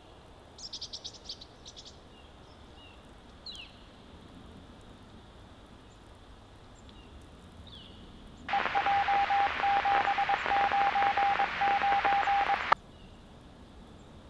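Police scanner radio: a few faint short chirps, then about four seconds of loud hissing static with a steady mid-pitched beeping tone running through it, cut off abruptly, as from an open transmission with no voice on it.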